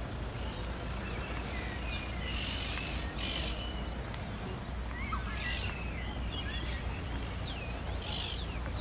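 Birds calling: many quick high chirps that sweep up and down in pitch, with a few harsh squawks, over a steady low outdoor rumble.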